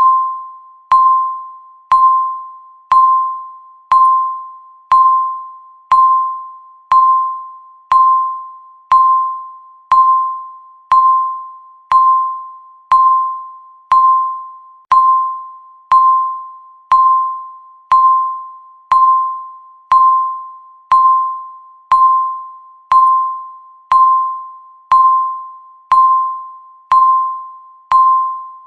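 Countdown timer's electronic beep sounding once every second, each a single pure tone that starts sharply and fades away before the next.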